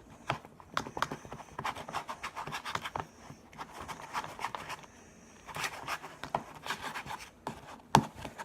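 A pencil stirring slime mixture in a bowl: irregular scraping and tapping, easing off briefly around the middle, with one sharper knock near the end. The mixture is thickening into slime as it is stirred.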